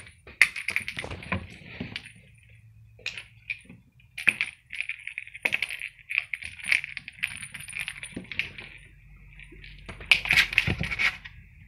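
Cats batting a jingling toy ball around a hard stone floor: clusters of quick metallic rattles and jingles with short gaps, loudest about ten seconds in.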